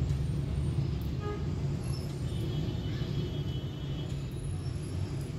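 Steady low background rumble, with a few faint thin high tones about halfway through.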